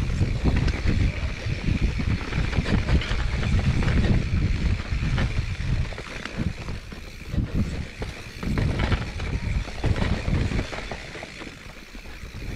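Mountain bike riding down dirt singletrack: tyre noise and the bike rattling over bumps in the trail, with wind rumbling on the handlebar camera's microphone. Quieter over the last few seconds.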